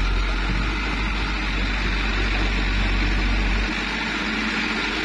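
Light dump truck's diesel engine revving hard under load as it tries to climb a slippery dirt slope and fails to make headway. The revs drop back about three and a half seconds in.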